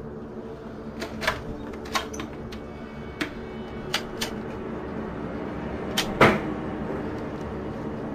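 Scattered sharp knocks and clicks, about nine of them at uneven spacing, the loudest about six seconds in, over a steady low hum.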